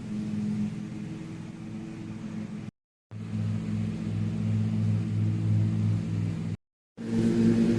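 A steady engine hum with an even pitch, broken into three stretches by two abrupt cuts to silence, about a third of the way in and near the end.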